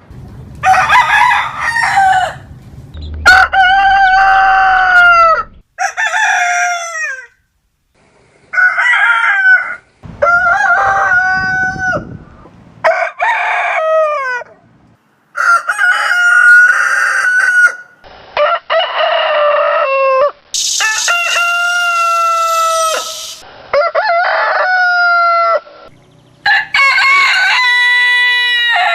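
Roosters crowing, about a dozen loud cock-a-doodle-doo calls one after another with short gaps between, each lasting a second or two.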